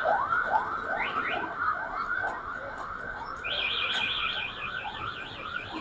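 Electronic alarm sounding: a rising chirp repeating about three times a second, joined about three and a half seconds in by a faster, higher-pitched chirp.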